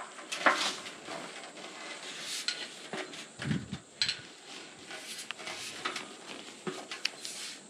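A locked gate being climbed over: a run of scattered knocks, clanks and scrapes from hands and feet on the gate, with a low thump about three and a half seconds in.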